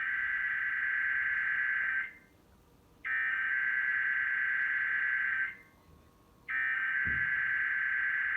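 Emergency Alert System SAME header data tones: three bursts of high, buzzing digital data, each about two and a half seconds long with about a second between them, sent to open a required monthly test.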